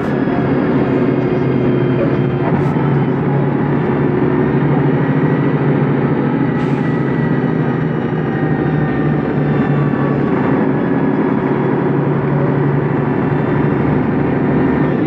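Volvo B10M bus's mid-mounted six-cylinder diesel engine running at a steady pitch, heard from inside the passenger cabin, with a couple of short clicks.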